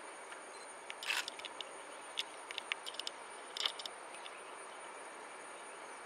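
A handful of short, sharp clicks at uneven intervals between about one and four seconds in, the first the longest and loudest, over a steady hiss with a thin high-pitched whine.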